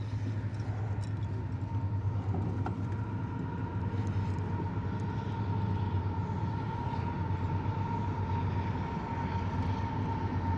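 Boat motor running steadily: a constant low hum with a thin steady whine above it that grows a little louder.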